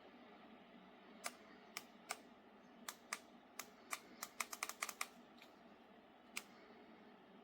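A run of sharp, irregular clicks, like keys or buttons being pressed, coming quickly in a cluster around the middle, over a faint steady hum.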